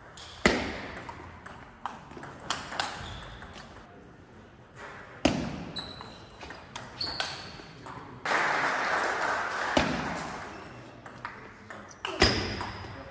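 Table tennis rallies: a quick series of sharp plastic ball clicks off the bats and the table, a few hit much harder than the rest, echoing in the hall. Short high squeaks come a few times, and a second or so of louder noise runs from about eight seconds in.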